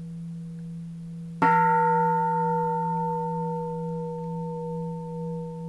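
Bronze Japanese Buddhist temple bell struck once about a second and a half in, then ringing on with a deep hum and several higher overtones, the upper ones fading first and the lower ones wavering slowly as they decay. The deep hum of an earlier strike is still sounding before the new one.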